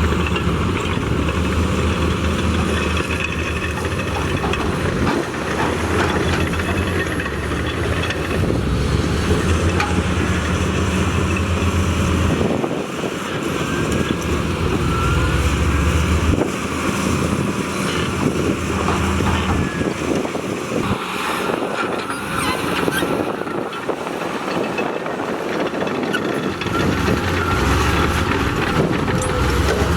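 Diesel engines of heavy earthmoving machinery, bulldozers or an excavator, running and working under changing load. The deep engine drone drops away twice, about a third of the way in and again past the middle, then comes back strongly near the end.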